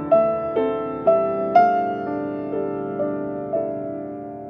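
Slow, gentle piano music, one note struck about every half second and each left ringing. The loudest note comes about a second and a half in, and the playing grows softer after that.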